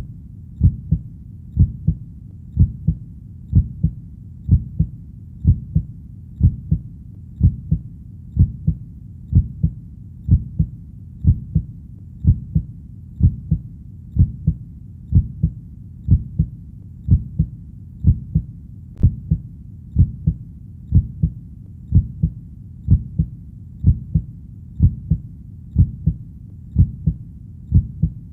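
Heartbeat: a steady, even lub-dub, each beat a pair of low thumps, about one beat a second, over a faint low rumble.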